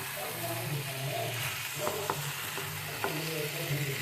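Chicken curry sizzling in a pan as it is stir-fried with its spice paste and curd, with a few sharp clicks of the spatula against the pan about two and three seconds in.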